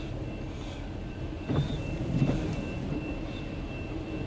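Empty autorack cars of a CSX freight train rolling steadily past a grade crossing, heard from inside a car, with two louder clanks about a second and a half and two and a quarter seconds in.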